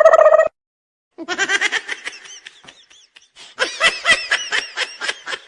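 Laughter sound effect: a quick run of high-pitched giggles starts about a second in and fades, then a louder burst of rapid laugh pulses comes in a little past halfway. Before it, a held, wavering tone from the previous effect cuts off abruptly about half a second in.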